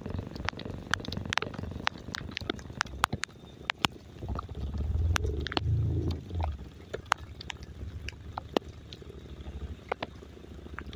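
Raindrops falling in sharp, irregular clicks, with a louder low rumble swelling and fading around the middle.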